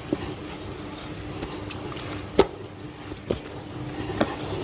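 Kitchen work sounds: a few short, sharp knocks and taps, the loudest about two and a half seconds in, over a steady low hum and faint hiss.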